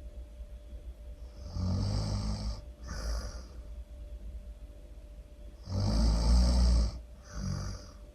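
A person snoring really loud: two long, low snores about four seconds apart, each followed by a short hissing breath out.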